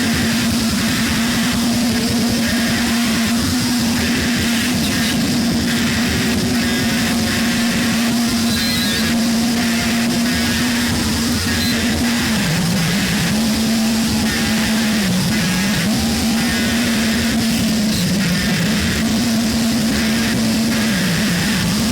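Harsh Japanese noise music: a loud, dense wall of noise with a steady droning tone that dips in pitch three or four times in the second half, over crackling, engine-like texture.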